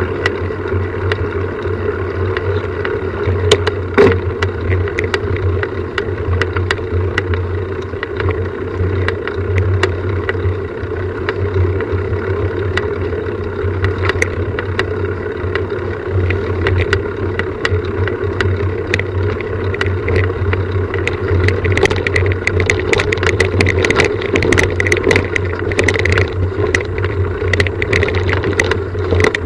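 Steady engine-like hum with scattered clicks and rattles that grow more frequent in the last third.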